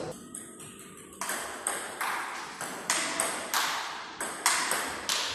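Table tennis ball clicking off the paddles and the table in a fast rally, about three sharp hits a second, starting about a second in after a brief lull.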